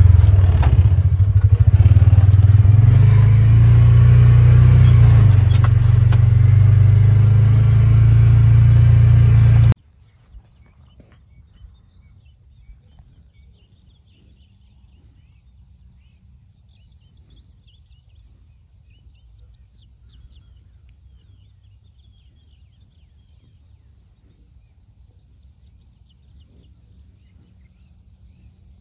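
Utility vehicle engine running as it drives across rough pasture, a loud steady drone with rattle and wind. About ten seconds in it cuts off suddenly to a quiet field with a faint steady high buzz of insects and a few soft chirps and ticks.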